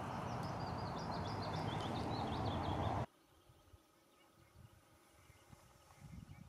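Steady outdoor rushing noise with a low hum under it and a small bird twittering quickly over the top. It all cuts off abruptly about halfway through, leaving near quiet with a few faint soft knocks.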